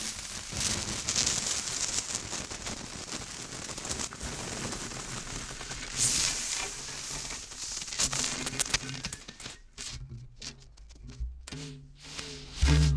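Dry ice pressed against metal, hissing and crackling as it sublimates on the warm surface, with faint low tones beginning to sound near the end as the metal starts to sing.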